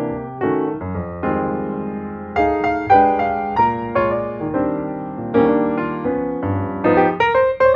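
Background piano music: a melody over chords, each note struck and fading.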